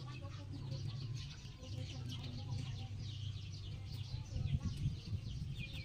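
Rabbit chewing fresh grass: rapid, fine crunching ticks, many a second, over a low steady hum.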